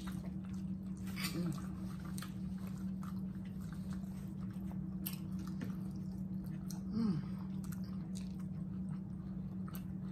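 Close-up mouth sounds of fried catfish being chewed, with scattered soft clicks of a fork and fingers on the plates, over a steady low hum. A short falling voice-like sound comes about seven seconds in.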